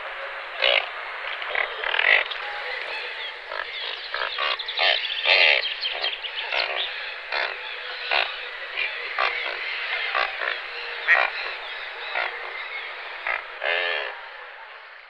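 Frog chorus: many short croaking calls overlapping, with a few louder calls standing out, fading near the end.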